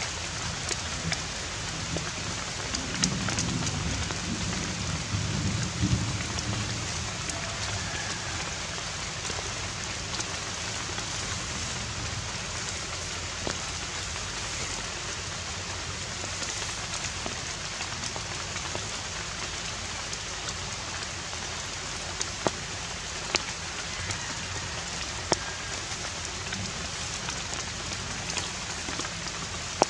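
Steady outdoor background hiss with scattered faint ticks, and a low rumble between about three and six seconds in.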